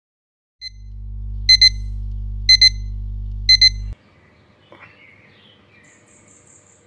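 Digital alarm clock beeping: three pairs of quick beeps, one pair a second, over a low steady hum, all cutting off suddenly about four seconds in. It gives way to faint early-morning outdoor ambience with a few high chirps.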